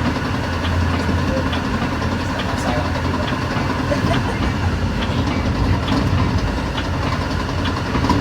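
Steady low rumble and hum inside a Metra commuter train coach under way, with faint scattered ticks and rattles.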